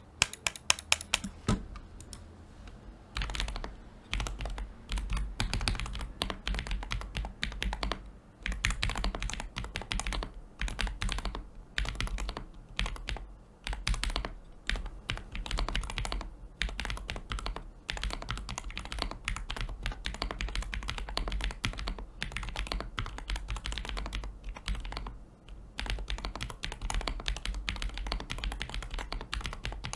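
Sound test on a Contra 40% custom keyboard with tactile Franken-switches made from Soft Panda and Kailh Polia parts: fast continuous typing, a dense run of key clacks with a few brief pauses. It sounds scratchy; the builder puts this down to the microphone resting on the same table, not to the switches.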